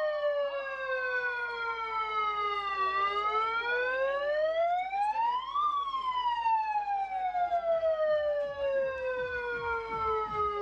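A siren wailing slowly. Its pitch falls, climbs to a peak a little past halfway, then falls again. It is sounded as the start signal of a running race.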